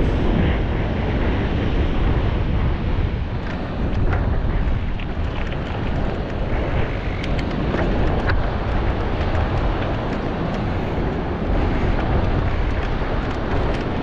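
Strong onshore wind buffeting the microphone, a steady low rumble, as a mountain bike rolls over sandstone rock, with scattered clicks and knocks from the bike.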